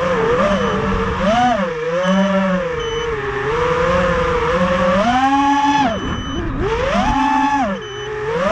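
FPV racing quadcopter's brushless motors (Racerstar 2205 2300kv) spinning 5-inch three-blade props, whining and surging up and down in pitch as the throttle is worked, with brief drops about six and eight seconds in.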